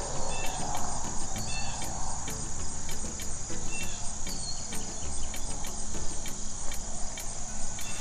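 Nature ambience of insects chirping steadily in a high, regularly pulsing trill, with occasional short bird chirps.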